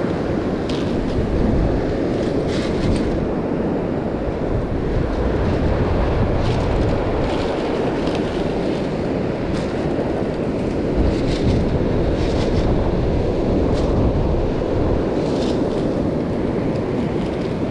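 Surf washing up the beach and wind buffeting the microphone in a steady low rush, with short crinkles of a plastic zip-top bag being opened and handled.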